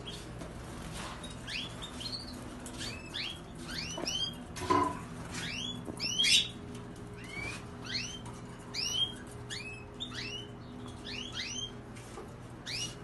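Caged domestic canaries calling: a steady run of short chirps, each sweeping sharply upward in pitch, two or three a second from several birds at once.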